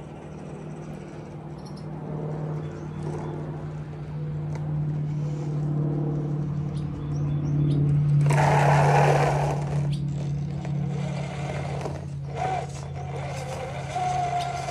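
Redcat Gen 9 scale RC crawler's Hobbywing Fusion Pro motor and drivetrain whining steadily as it crawls slowly up and over a plywood ramp, with a louder scraping rasp about eight seconds in.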